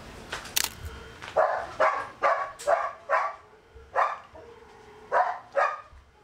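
A dog barking, about eight short barks in quick succession with brief gaps between them.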